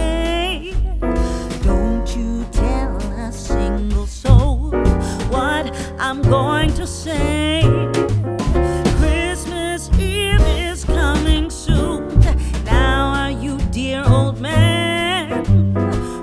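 Music: a song with a singing voice over piano and a strong bass line.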